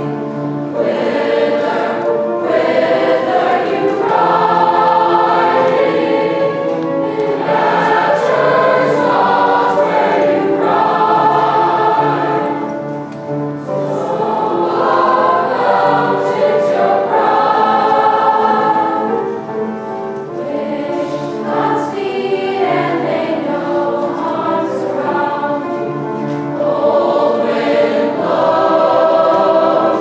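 An eighth-grade mixed choir of young teenage voices singing a choral piece in parts, with piano accompaniment. The singing goes phrase by phrase, easing off briefly about 13 and 20 seconds in.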